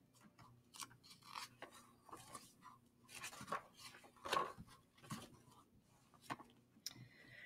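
Faint, scattered rustles and light clicks of handling noise, a few soft scrapes and taps spread irregularly.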